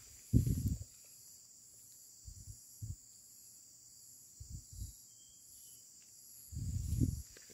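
Insects shrilling steadily and high-pitched, with a pulsing note above. Several dull low bumps break in, the loudest just after the start and another lasting most of a second near the end.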